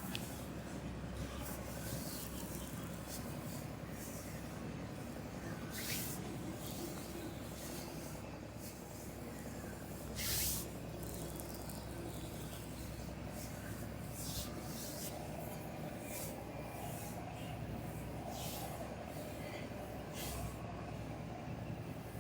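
Back massage sounds: short hissing swishes every few seconds, one longer and louder about ten seconds in, over a steady low background hum.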